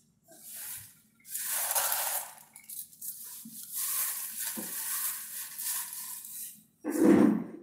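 Plastic bag rustling as it is handled, in two stretches, then one loud thump near the end.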